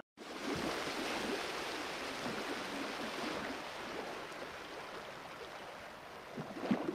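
Even hiss of room and microphone noise that slowly fades, with a few faint knocks and rustles near the end as hands handle a small cardboard notebook held in binder clips.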